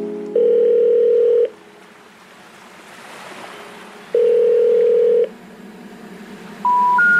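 Background electronic music: two long, held synth notes, each about a second, over a quieter sustained chord, with a soft rushing swell between them and a run of short rising notes starting near the end.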